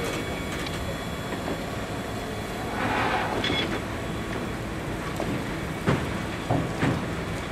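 Railcars rolling slowly through a road grade crossing: a steady rumble of wheels on rail, swelling briefly about three seconds in, then three sharp clanks from the wheels near the end.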